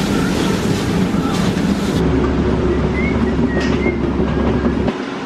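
Steady kitchen roar with clatter, then a rolling rumble, as of a loaded kitchen cart carrying stockpots being wheeled, with a few faint squeaks; the rumble drops away near the end.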